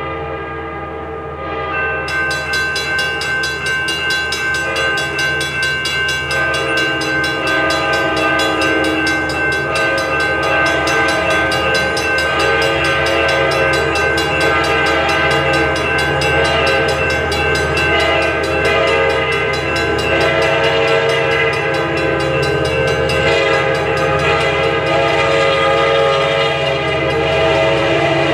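An approaching Amtrak locomotive's multi-chime horn blows, one held chord that grows louder as the train nears. About two seconds in, the grade-crossing bell starts ringing rapidly and keeps going.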